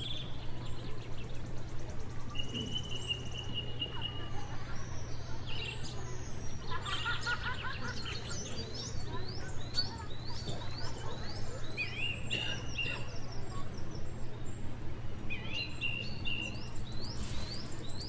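Several wild birds chirping and singing: a short trill, then a run of quick rising chirps and scattered calls, over a steady low hum.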